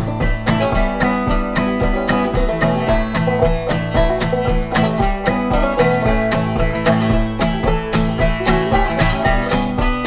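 Banjo and acoustic guitar playing an instrumental bluegrass tune together, the banjo picking a steady stream of quick notes over the guitar's rhythm.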